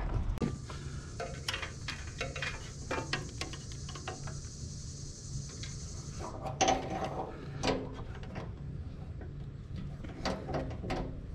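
Handling noises of a rubber fuel line and its metal end fitting being fed through a tractor's engine bay toward the lift pump. Irregular small clicks and knocks, with a couple of brief squeaks about two-thirds of the way in.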